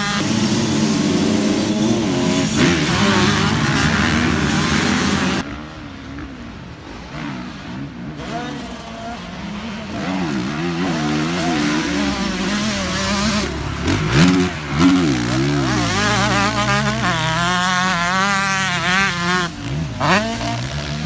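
Two-stroke motocross dirt bike engine revving up and down as it is ridden hard, the pitch rising and falling with each throttle and gear change. About five seconds in it turns quieter and duller for a few seconds, then comes back loud with quick up-and-down revs.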